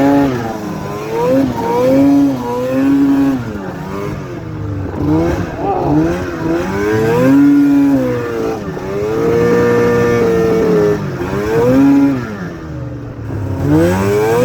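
Arctic Cat ZL500 snowmobile's two-stroke engine revving up and down over and over as it is ridden, holding a higher pitch for about a second two-thirds of the way through. It is reluctant at full throttle, which the owner suspects may need a top-end rebuild.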